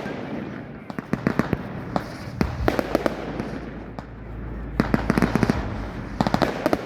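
Fireworks going off: clusters of rapid sharp cracks and pops, a fresh cluster every second or two, with a low rumble under them for a couple of seconds near the middle.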